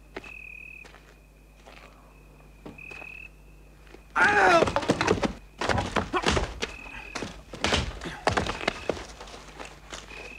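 A scuffle between two men: a short strangled cry about four seconds in, then a run of heavy thuds and scraping as one is wrestled to the ground.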